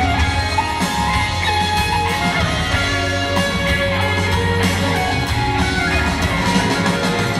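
Live rock band playing an instrumental passage with guitar to the fore over bass and drums, with no singing.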